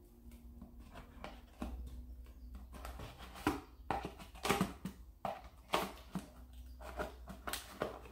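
Scissors cutting through cardboard: irregular snips and crunches, sparse at first, then louder and more frequent in the second half.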